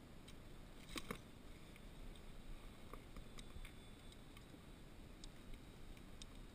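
Quiet, with a pair of light knocks about a second in and faint scattered ticks, as a landing net and fishing gear are handled aboard a plastic kayak.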